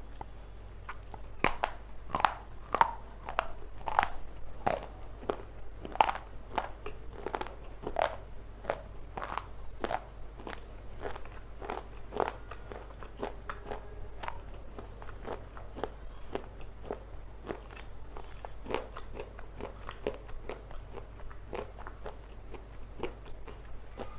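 Close-up chewing of a hard, crunchy food: sharp, loud crunches about twice a second, turning to softer, quicker chewing about halfway through.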